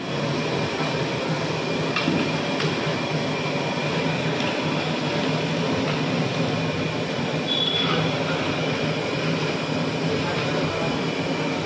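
Steady rushing of gas burners under large aluminium pots of milk, with a few light clinks of a long metal ladle against a pot as the milk is stirred.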